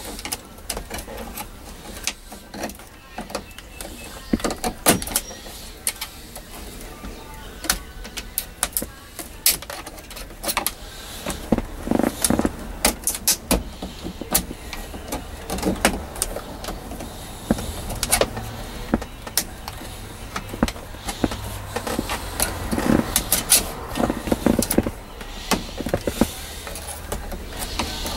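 Screwdrivers and a pocket knife prying and scraping at an old tape deck and its plastic trim ring in a truck dashboard: irregular clicks, knocks and plastic scraping, over a low steady hum.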